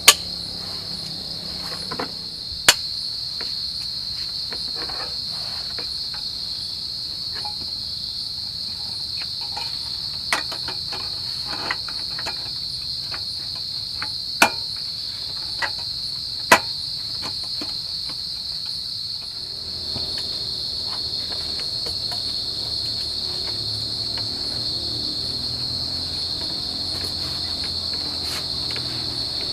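A steady, high-pitched chorus of forest insects, with a handful of sharp, separate knocks, loudest near the start and about a third and halfway in.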